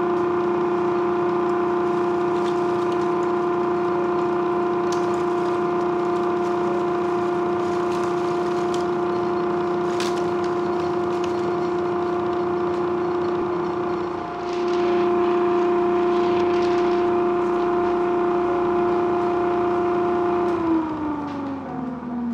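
Homemade dust collector blower running with a steady, high-pitched whine from its spinning impeller. Near the end the whine falls in pitch as the impeller spins down.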